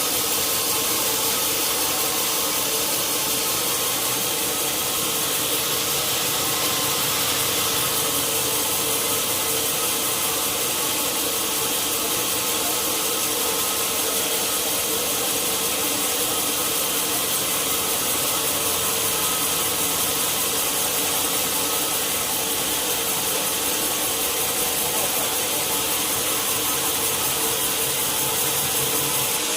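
Sawmill saw running steadily through a large log: an even, unbroken hiss of the blade in the wood over a steady machine hum.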